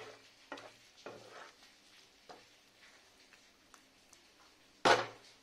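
A wooden spatula stirring and scraping through thick egg keema masala in a nonstick pan, a few short strokes, over a faint sizzle from the pan. Near the end comes a single loud, brief clatter.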